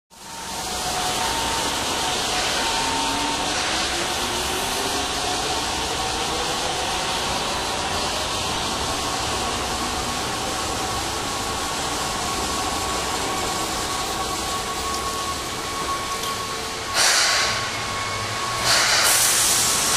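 Electric commuter train running on the station tracks: a steady rumble and hiss, with a motor whine rising in pitch over several seconds. Two short bursts of air hiss come near the end.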